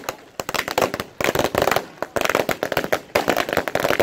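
Firecrackers going off on the ground in rapid strings of sharp cracks, two long runs with a brief lull about halfway.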